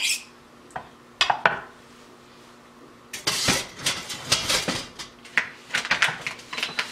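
A kitchen knife being sharpened: the blade scrapes across a sharpener in quick, rasping metal strokes, with a few clicks at first, a short pause, then a fast run of strokes from about three seconds in.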